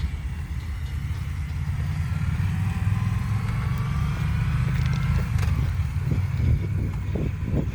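A motor vehicle's steady low engine and road rumble, with a faint whine rising in pitch partway through.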